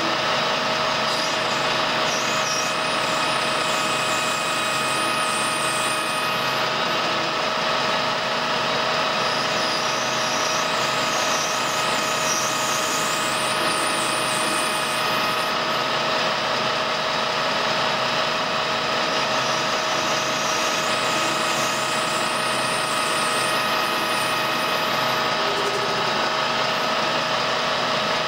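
Colchester metal lathe running at a steady speed with an even gear whine, while a homemade ball-turning attachment cuts a brass workpiece.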